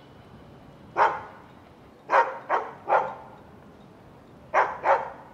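A dog barking: one bark, then three quick barks, then two more.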